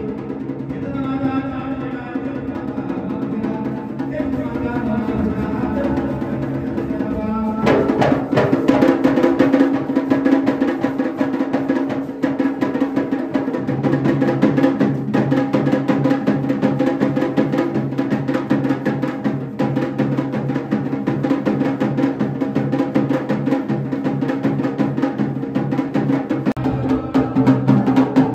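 Devotional singing over music, then about eight seconds in, loud, fast drumming breaks in and carries on under the music.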